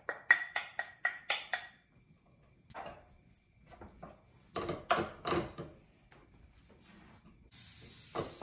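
A wooden spatula taps ground beef out of a glass bowl into a nonstick frying pan in a quick run of about seven knocks. It then pushes and breaks up the meat in the pan in a second cluster of knocks and scrapes. Near the end the meat starts sizzling in the hot oil.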